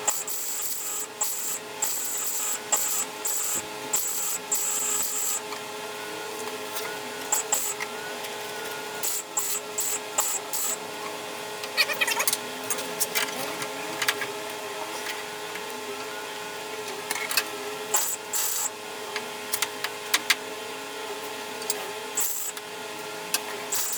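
MIG welder laying weld on car body steel in a series of crackling bursts lasting from under a second to several seconds, with short pauses between, over a steady background hum.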